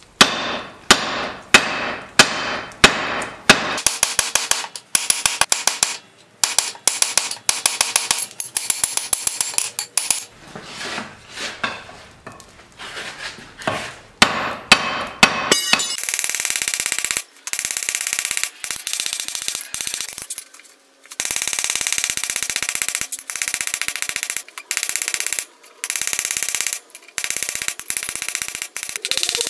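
Hand hammer striking red-hot O1 tool steel on an anvil, drawing out a knife tang, with ringing metal-on-metal blows. The blows come singly about twice a second at first, then in quick runs, and from about halfway on as a fast, continuous beat of cross-peen hammer strikes.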